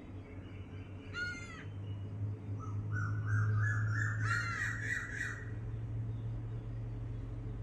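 Birds calling: a short arched call about a second in and another about four seconds in, with a run of stepped, rising notes between them, over a steady low hum.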